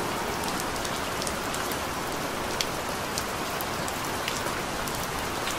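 Steady rain falling: an even hiss with a few sharper single drop ticks scattered through it.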